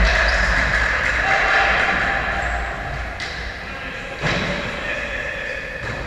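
Basketball game in a large echoing gymnasium: a ball bouncing on the wooden floor and players' calls, under a steady drawn-out tone.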